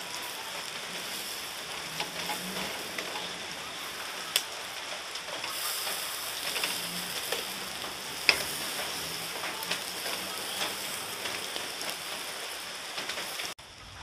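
Chicken inasal sizzling as it grills: a steady crackling hiss with a few sharp pops. The sound drops off suddenly near the end.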